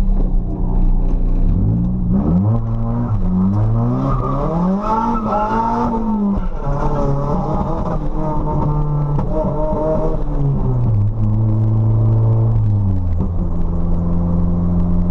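Nissan SR20DET turbocharged four-cylinder engine with a 3-inch straight-pipe exhaust, revving up and easing off several times as the car accelerates through the gears, then settling to a steady lower drone near the end.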